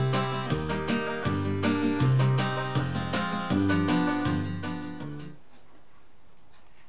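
Instrumental music with plucked string notes over a bass line, fading out about five seconds in and leaving a faint steady hiss.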